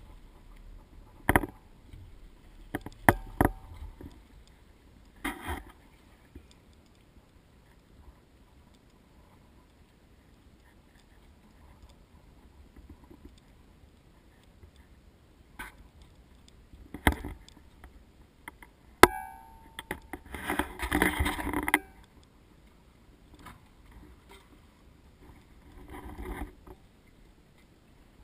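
Scattered knocks and clunks aboard a small fishing boat, with a short burst of rushing noise about twenty seconds in.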